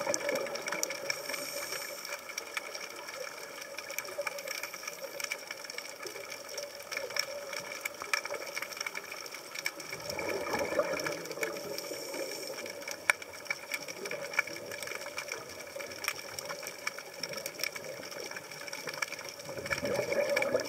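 Underwater sound picked up by a scuba diver's camera: a constant crackle of small clicks with a faint steady hum, and a rush of exhaled regulator bubbles about every ten seconds.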